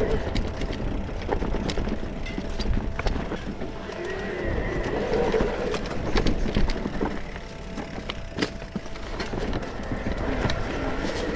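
Electric mountain bike riding along a dirt trail: a low rumble of tyres and wind on the microphone, with scattered clicks and rattles from the bike over bumps.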